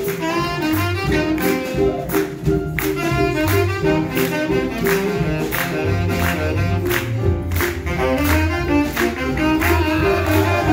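Jazz big band playing, led by a saxophone solo of quick note runs over upright bass, guitar and drums with regular cymbal strokes.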